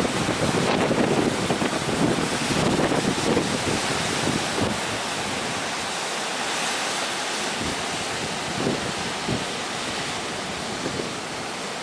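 Waves breaking in heavy surf, a steady rushing noise, with wind buffeting the microphone, strongest in the first few seconds.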